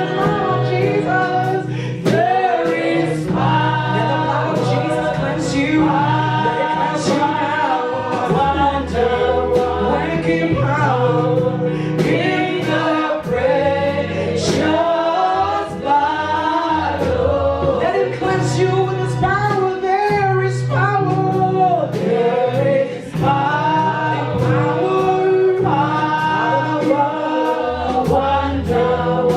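Gospel worship music: several voices singing together over a bass line, with light percussion ticking through it.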